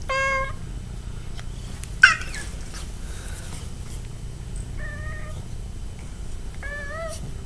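Gray tabby cat meowing several times while being held up and squirming: a short meow at the start, another a little before the middle of the second half, and a longer, wavering one near the end. A sharp knock about two seconds in is the loudest sound.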